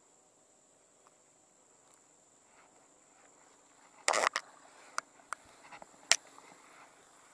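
A cast net being swung and thrown: a loud rushing rustle about four seconds in, then several sharp clicks, the loudest about two seconds later. A steady high insect drone runs underneath.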